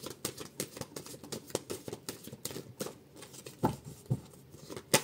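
A thick deck of oracle cards being shuffled by hand: a quick, irregular run of soft card flicks and slaps, several a second.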